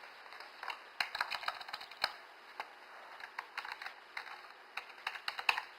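Typing on a computer keyboard: irregular keystrokes in quick runs.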